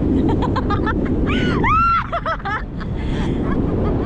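Wind rushing over the microphone and a boat's engine and water noise, with excited high-pitched voices: a string of quick squeals and one drawn-out shriek rising and falling about a second and a half in.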